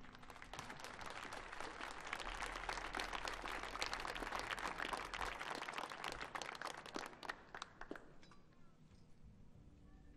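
Audience applauding at the end of a song, the clapping thinning out and dying away about eight seconds in.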